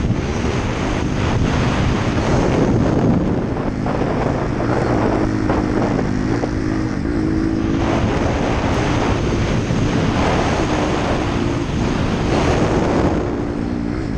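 Small mini-bike engine running while riding, its pitch shifting up and down, under heavy wind buffeting on the microphone.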